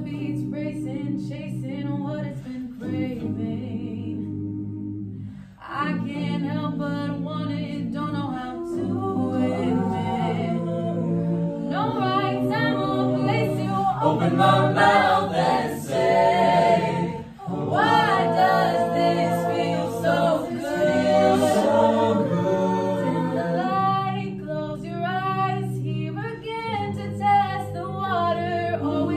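Mixed-voice a cappella group singing in harmony, lower voices holding chords under moving upper melody lines, with short breaks about five and a half and seventeen seconds in.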